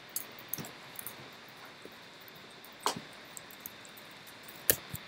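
Computer keyboard keys being typed in a sparse, irregular run of short, sharp clicks, the loudest near the end.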